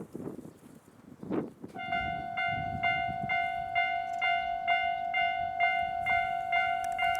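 Railway level-crossing warning sounder starting about two seconds in, giving repeated dings about twice a second over a steady ringing tone: the crossing is warning of an approaching train. Before it starts there are gusts of wind noise on the microphone.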